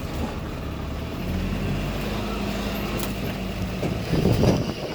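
A vehicle's engine running steadily, a low drone, with a short louder sound near the end.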